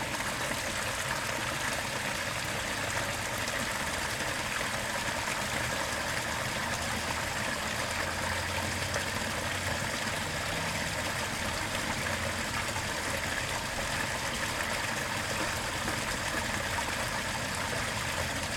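Steady splashing rush of water tumbling down a small garden-pond waterfall, with a faint low hum underneath.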